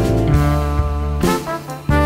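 Background music: a jazzy tune with brass playing held notes, dipping briefly near the end.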